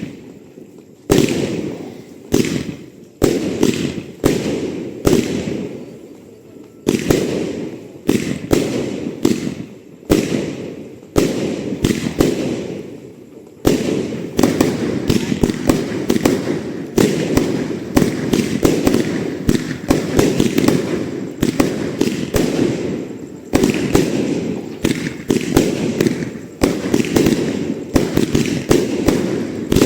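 Fireworks exploding, each sharp bang trailing off in a rolling echo. The bangs come singly, about a second apart at first, then from about halfway through in a dense, near-continuous barrage.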